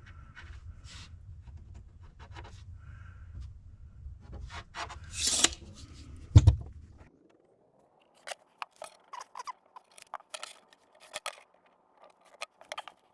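Short scratching and scraping strokes with scattered sharp clicks, as of hand work marking and cutting a cabinet's side panel. There is a louder scrape a little after five seconds and a heavy knock about a second later.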